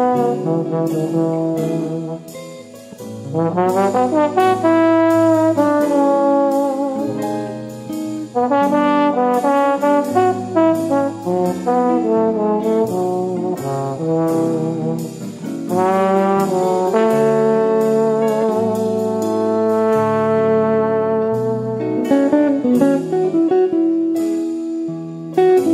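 Background music: a jazzy brass tune with sliding notes over a steady beat.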